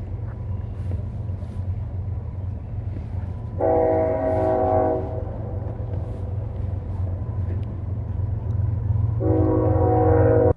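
Train rumbling past, its multi-tone horn sounding twice: a blast of about a second and a half roughly three and a half seconds in, and another near the end.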